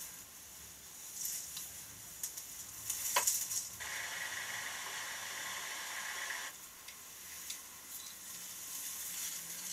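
Faint crackling rustle and hiss, with a few small clicks, a short swish about three seconds in, and a steadier hiss from about four to six and a half seconds in.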